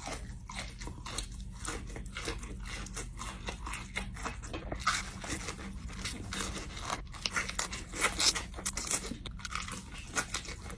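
Crunching and chewing of crispy fried KFC Nashville hot chicken tenders, in quick, irregular crunches of bites and chews.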